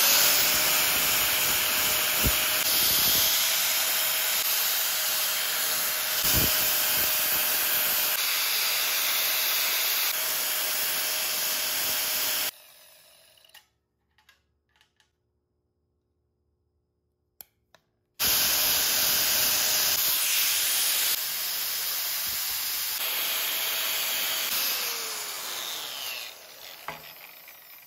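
Electric angle grinder with an abrasive disc grinding small steel mount tabs down to bare, shiny metal to prep them for welding. It spins up, grinds steadily for about twelve seconds and winds down. After a few seconds of quiet it starts again, grinds, and spins down near the end.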